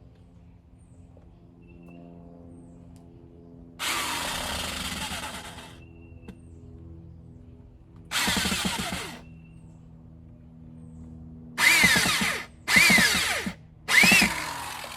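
Corded electric power drill run in five short trigger bursts, each whining up to speed and dropping back, driving screws to fix a doorbell camera mount. The last three bursts come close together and are the loudest.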